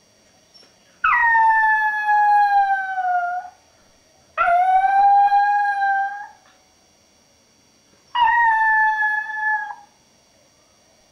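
Maltese puppy howling: three long howls of about two seconds each, separated by short pauses, the first sliding down in pitch.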